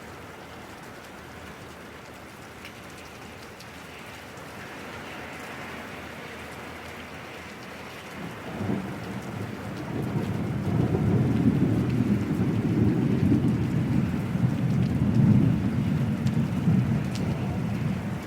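Steady rain falling, joined about halfway through by a long, deep roll of thunder that swells and rumbles on almost to the end, louder than the rain.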